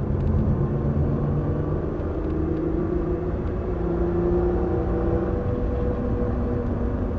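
Nissan GT-R's twin-turbo V6 pulling hard under acceleration out of a corner, heard from inside the cabin, its engine note rising steadily over a dense low road and tyre rumble.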